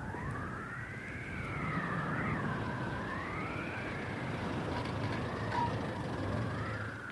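A siren-like wailing, two tones gliding slowly up and down and weaving across each other, over the low running of a small car's engine as the car approaches and pulls up.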